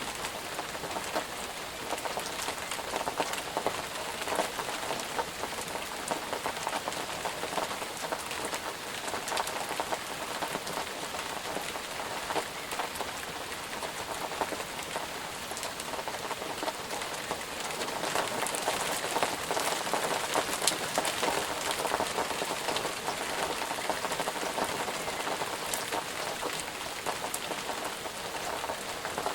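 Steady rain falling on a surface, a dense patter of many individual drops.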